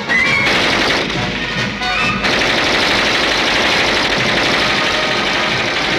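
Cartoon soundtrack music with a dense, rapid rattle that thickens and runs on continuously from about two seconds in.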